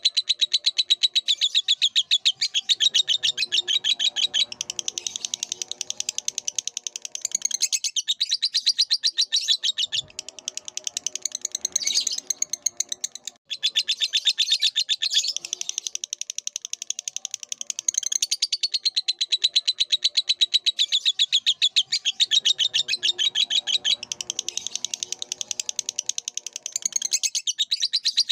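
A lovebird sings a long, fast, high-pitched chattering song, the notes running together almost without pause. There is a brief break about halfway through.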